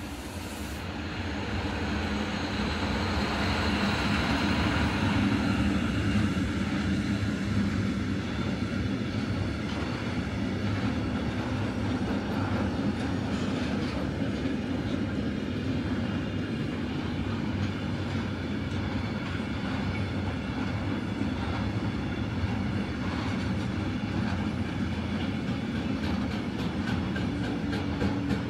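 A train passing close by on the tracks. It grows louder over the first few seconds and then runs on steadily as a rumble, with quick, evenly spaced clicks of wheels over rail joints near the end.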